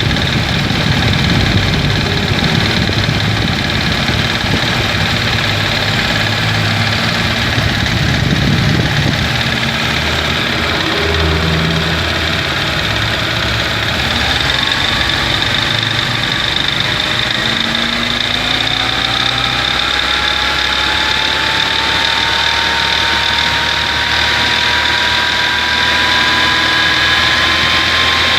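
Ford Escort or Orion car engine running at idle, carrying a noise of unknown cause that the owner cannot locate, though the engine starts well, runs without misfiring and holds its idle. About halfway through a steady high whine sets in, and a second whine climbs slowly in pitch toward the end.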